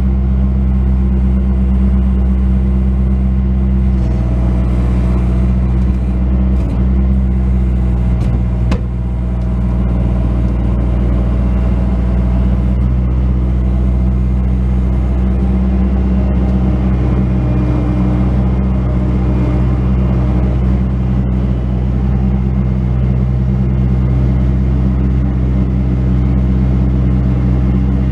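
Bobcat S185 skid steer loader's diesel engine running steadily under work, with a brief knock about a third of the way through.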